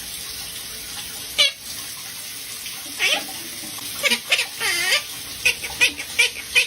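Water running from a tap, a steady hiss, with a pet parrot chirping and warbling over it: a call about a second and a half in, wavering warbles in the middle, then a quick run of sharp chirps near the end.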